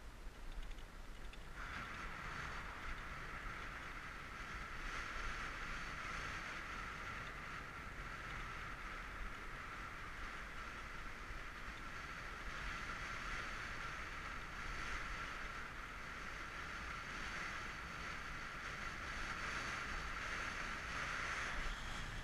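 Steady whirring of a bicycle coasting fast downhill, tyres on asphalt and wind across the camera, coming in suddenly about a second and a half in.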